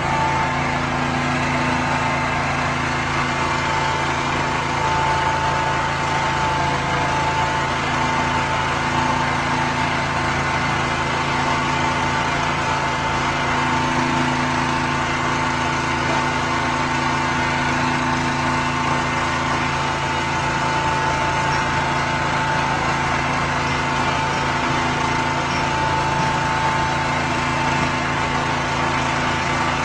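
A small engine running steadily at constant speed, with a steady high whine over its drone.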